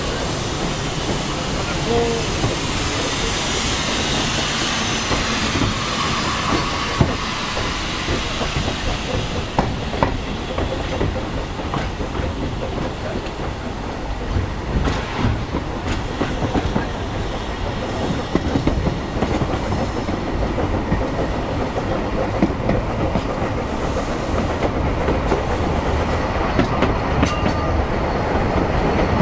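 Narrow-gauge passenger train in motion, heard from an open carriage window: a steady running rumble of the carriage with its wheels clicking over the rail joints.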